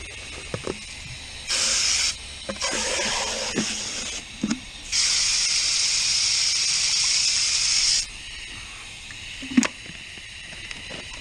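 Three hissing bursts of spray onto a dirty refrigeration condenser coil, the last one about three seconds long, with a few light knocks and a sharp click near the end.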